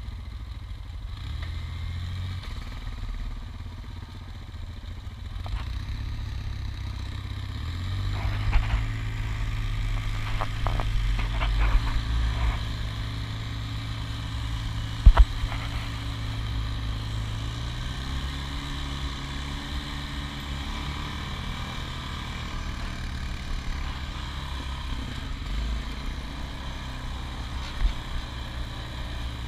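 Honda Foreman 450 ATV's single-cylinder engine running under way along a dirt trail. It picks up in pitch and loudness about eight seconds in and eases back some ten seconds later. Knocks and rattles come through over bumps, the loudest a sharp bang about fifteen seconds in.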